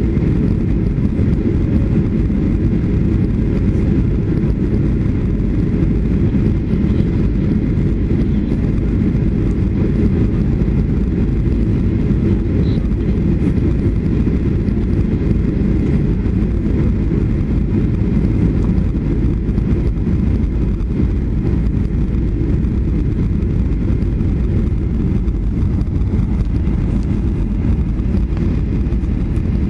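Steady low rumble of Boeing 757-200 cabin noise, engines and airflow heard from a window seat, as the airliner descends toward landing.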